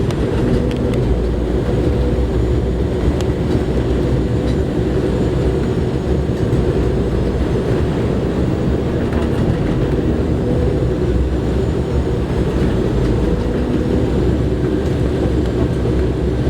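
Steady cabin noise inside an Embraer E190 airliner in flight on approach: the engines and the rush of air over the fuselage make an even low rumble with a few steady hums on top.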